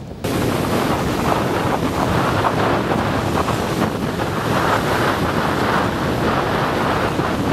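Wind buffeting the camcorder's microphone over the steady wash of ocean surf on an open beach. The noise comes in abruptly just after the start and then holds steady.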